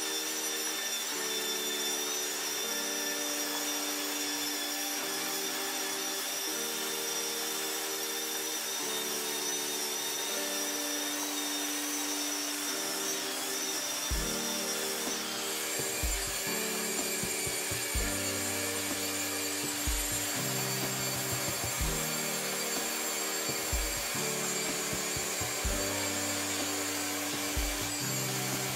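Background music, chords with a deep beat coming in about halfway, over the steady whine of an electric drill spinning a wire wheel. Rusty bench-grinder parts, an aluminium end cover and then a steel cover, are pressed against the wheel to brush them clean.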